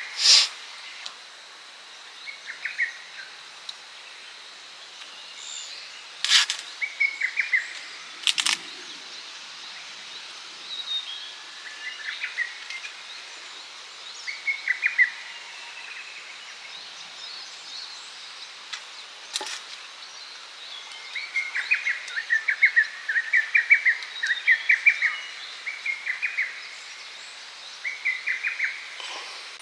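Small birds chirping in short bursts of quick repeated notes, busiest in the last third, over a steady outdoor hiss. A few sharp clicks or knocks cut in, the loudest right at the start.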